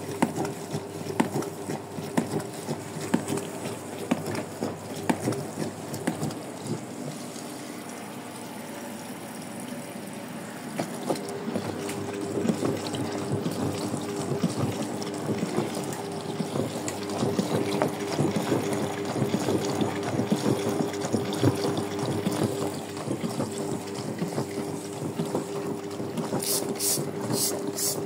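Brandt 522 top-loading washing machine mid-wash: the drum turns with water sloshing and splashing inside over a steady motor hum. The hum stops for a few seconds about six seconds in and starts again at about eleven seconds, as the drum pauses between turns. Near the end comes a fast run of high-pitched clicks.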